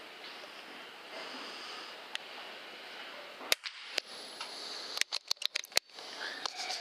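A .22 PCP air rifle shot: a sharp crack about halfway through, a second crack half a second later, then a quick run of sharp clicks, over a steady background hiss.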